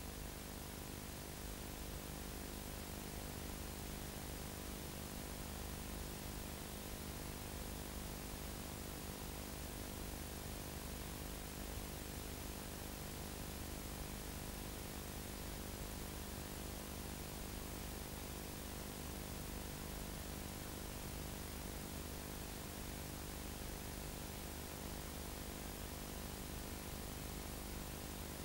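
Steady hiss with a low mains hum and its buzzing overtones, unchanging: the noise floor of a blank stretch of an old videotape recording.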